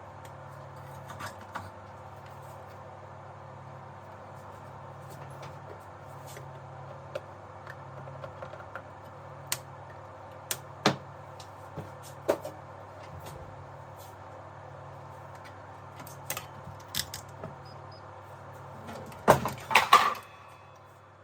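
Scattered light clicks and taps of tools and parts being handled during bench work on an amplifier, with a louder burst of clatter near the end, over a steady low hum.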